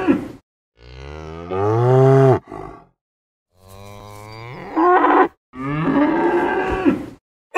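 Cows mooing: three long moos with short silent gaps between them, the first rising in pitch and followed by a short grunt.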